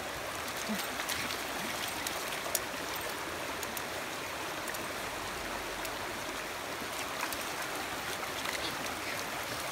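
Shallow river water running steadily over stones and gravel.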